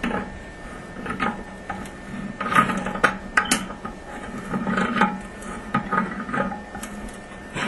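Pliers tightening the nut on a toilet fill valve's (ballcock's) threaded shank under the tank: irregular bunches of clicks, creaks and scraping as the jaws grip and turn the nut.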